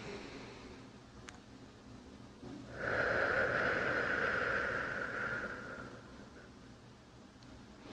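A person breathing deeply and slowly. A fainter breath comes at the start, then a long, loud, airy breath begins about three seconds in and lasts about three seconds.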